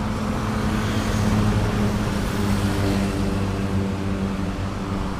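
An engine running steadily nearby, a low drone whose pitch shifts a little about halfway through.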